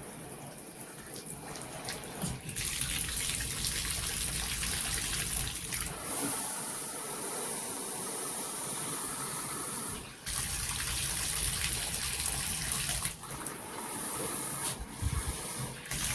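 Water running full in a bathtub, through a tub spout fitted with a 3D-printed shower diverter; the rushing sound dips briefly a few times.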